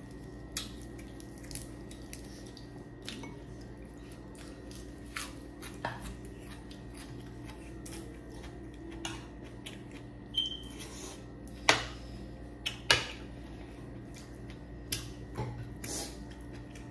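Metal spoons clinking and scraping against plates and a glass bowl during a meal: a scattering of light, irregular clicks, the two loudest close together a little past the middle, over a steady low hum.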